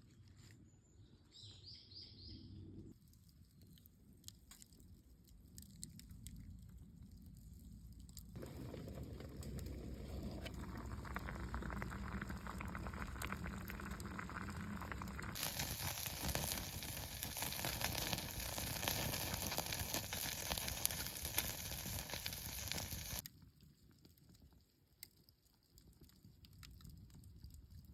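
Campfire cooking: a wood fire crackling and food sizzling, in several cut segments of different loudness. An even hiss from about halfway to near the end is the loudest part.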